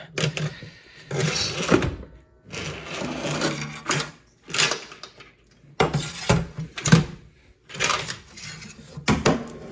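Old pull-down kitchen faucet and its supply lines being pulled up through the mounting hole of a stainless steel sink: a series of irregular scrapes and knocks.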